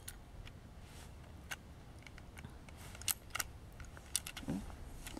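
A few light, sharp clicks spread over several seconds, the loudest about three seconds in, from a youth .22 Crickett single-shot bolt-action rifle being handled and loaded.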